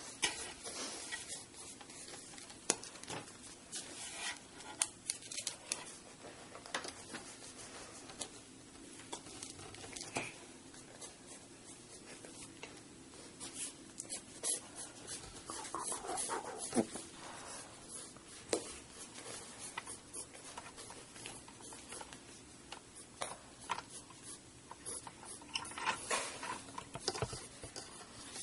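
Pencil sketching on paper: quick, light, scratchy strokes going back and forth, with small ticks as the pencil tip touches down. There are denser stretches of scribbling about halfway through and near the end.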